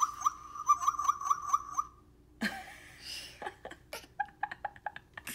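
Recorded zebra bray played from a children's sound book's small speaker: a rapid run of repeated calls, about four a second, lasting about two seconds, followed by scattered clicks and taps.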